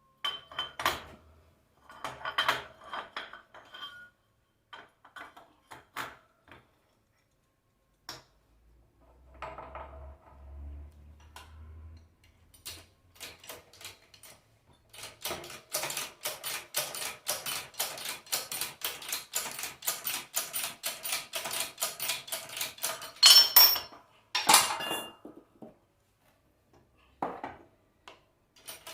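Metal tools and alternator parts clinking and clattering, then a long run of quick, even metallic clicks, about four a second, ending in a couple of loud metal clanks.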